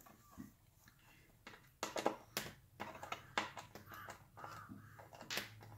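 Screwdriver clicking and scraping against the screws and metal chassis while the LED backlight inverter board of a 2011 iMac is unscrewed: scattered clicks, busier and louder from about two seconds in. A low hum comes in near the end.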